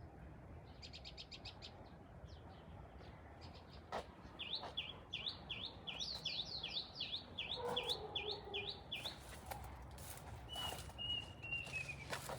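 Small birds calling: a fast run of short high notes about a second in, then a long series of quick repeated chirps, about four a second, from about four seconds in. A thin held whistle follows near the end, with a few sharp clicks scattered through.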